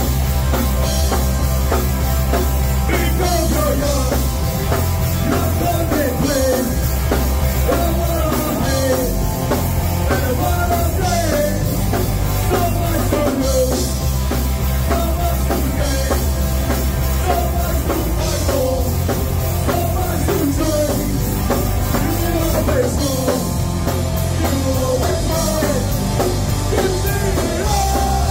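Live rock band playing loud and without a break: distorted electric guitars over a drum kit.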